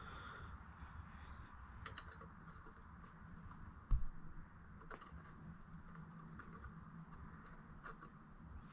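Small parts being handled and worked by hand: light scattered clicks and scratches, with one dull thump about four seconds in.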